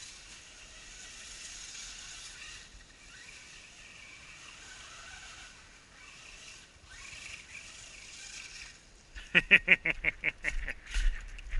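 Faint high whine of a small RC truck's brushed electric motor, coming and going in the distance. About nine seconds in, a rapid run of loud crackling close by, about seven or eight a second.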